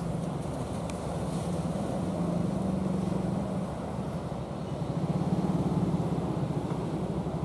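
Engines of wooden fishing boats running steadily under way with a fast, even chugging, growing louder about five seconds in as the nearest boat comes closer.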